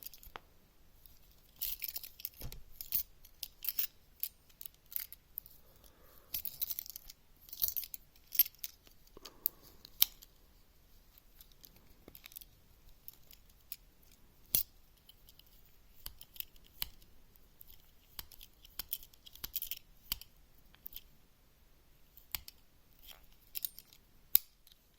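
Tools of a Victorinox Evolution S14 Swiss Army knife being opened and closed over and over, giving scattered sharp clicks as they snap into place, with short scraping stretches in between. The tools are being worked to spread fresh oil through the pivots.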